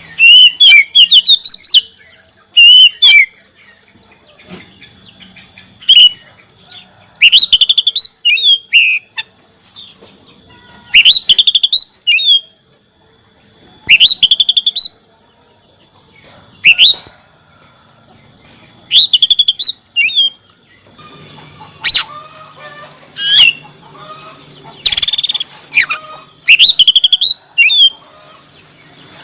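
Oriental magpie-robin (kacer) in full song: loud, varied whistled phrases of quick rising and falling notes, delivered in short bursts every two to three seconds. A faint low hum runs under the second half, and a brief rushing noise comes about 25 seconds in.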